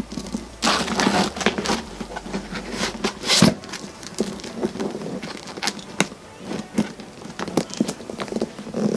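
A plastic folder and a spiral notepad are being pushed into a Givenchy Antigona leather handbag. The handling makes rustling, scraping and crackling sounds with scattered clicks, loudest in a short burst about three and a half seconds in.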